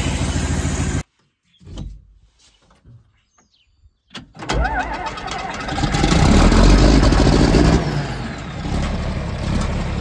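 A pickup's engine runs steadily for about a second, then cuts off abruptly to near silence. About four seconds in, a John Deere tractor's diesel engine starts up and runs, loudest for about two seconds in the middle before settling to a steady run.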